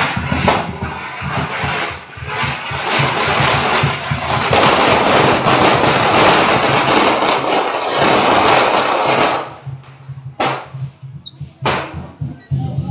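A long string of firecrackers going off in a dense, rapid crackle that stops abruptly about nine seconds in, followed by two single loud bangs.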